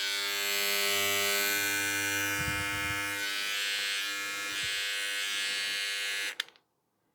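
BarberBoss QR-2090 cordless facial trimmer running with a steady buzz, the usual noise for such trimmers. It is switched off about six seconds in, and the buzz cuts off suddenly.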